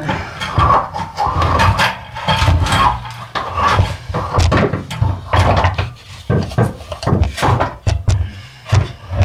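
Irregular clunks, knocks and scraping of a Nissan Rogue's rear driveshaft being worked loose and slid out from under the car, the metal shaft knocking against the underbody.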